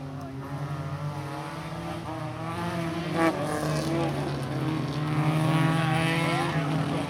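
Folkrace cars' engines running hard on a dirt track, growing louder as they come closer, with the revs rising near the end. A brief sharp crack about three seconds in.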